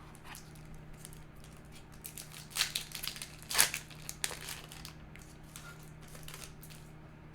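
A foil Yu-Gi-Oh! booster pack wrapper crinkling and being torn open. It makes a cluster of sharp crackles from about two seconds in, loudest about three and a half seconds in.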